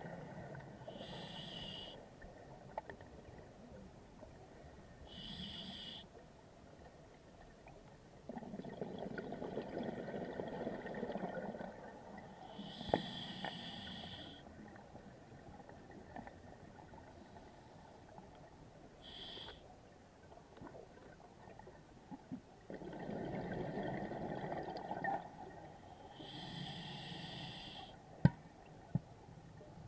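Scuba diver breathing underwater through an open-circuit regulator: short hissing inhalations alternate with longer bubbling exhalations, every several seconds. Two sharp clicks near the end.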